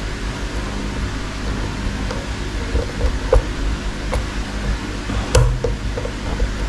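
Small clicks and taps of fingers handling a quartz watch movement and its plastic spacer ring, with one sharper click about five and a half seconds in, over a steady background hum.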